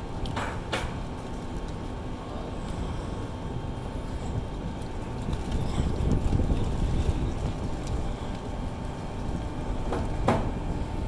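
Airliner jet engines heard across the airfield: a steady low rumble with a faint high whine, growing somewhat louder about halfway through. A few sharp clicks near the start and one near the end.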